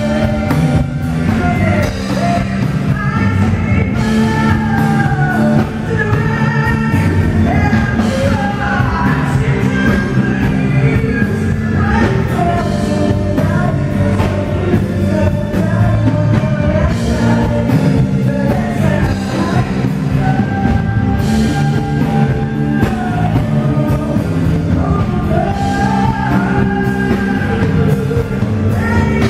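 Live rock band playing with a female lead vocalist singing over electric guitars and keyboards.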